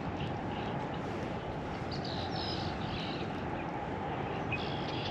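Birds calling faintly over a steady low outdoor rush of background noise, with a short burst of chirps about two seconds in and another near the end.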